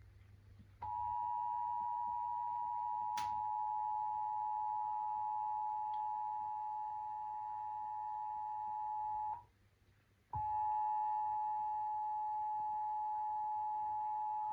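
Emergency Alert System two-tone attention signal, the steady dual tone that precedes an EAS test message. It sounds for about eight and a half seconds, breaks off for about a second, then comes back for about four seconds. A short click comes about three seconds in.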